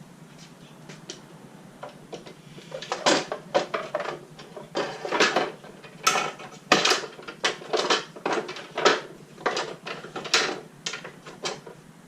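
Irregular clattering and knocking of hard objects being handled, a dozen or more sharp knocks with short ringing tails starting about two seconds in.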